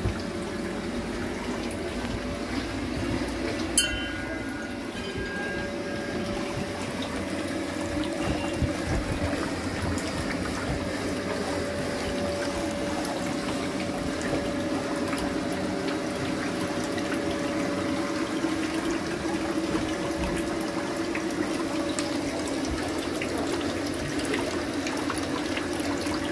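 Small garden water feature running: water trickling and splashing steadily from pot to pot down a water butt into a bucket, with a steady hum underneath. A single sharp click about four seconds in.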